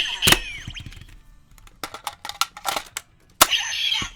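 Kamen Rider Ex-Aid DX transformation toy playing its electronic finishing-attack sound effects: synthesized music and falling zaps, with two sharp gunshot-like bangs, one near the start and one about three and a half seconds in. Plastic clicks from the gashat and holster being worked come in between.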